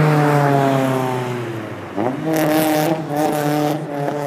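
Car engine running with its pitch sliding slowly down, then revved up sharply about two seconds in and held, easing off and coming back twice, with bursts of hiss alongside the revs.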